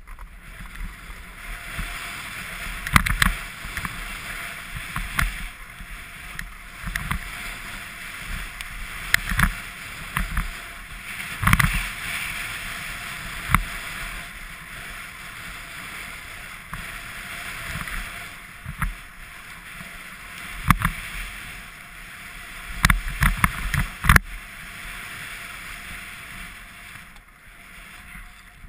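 Skis sliding and scraping over packed snow in a steady hiss, heard from a body-worn camera, with sharp knocks every few seconds as the skis and skier jolt over bumps.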